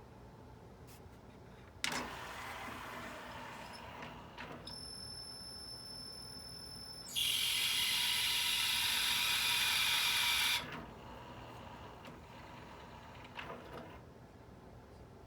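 Sony CDP-CE275 5-CD changer mechanism working: a click, a steady high-pitched whine, then a loud, even rushing noise for about three and a half seconds, which cuts off, followed by a few soft clicks. The loud noise is the one the unit is shown for.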